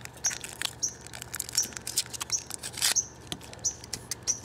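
Thin foil wrapper crinkling and crackling in irregular little clicks as a Kinder Surprise chocolate egg is unwrapped by hand. Behind it a bird gives a short high chirp over and over, about twice a second.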